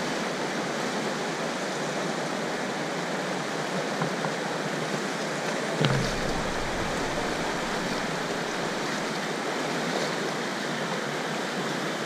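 Rushing mountain stream running fast over rocks, a steady noise of white water. About six seconds in there is a brief low thump with a splash, as a wading foot steps into the water.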